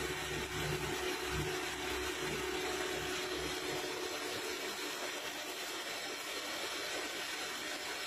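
Nakamura-Tome TW-20 CNC lathe turning a bar under flood coolant: a steady hiss of coolant spraying with the machine running. A low rumble and a steady hum fade out about halfway through.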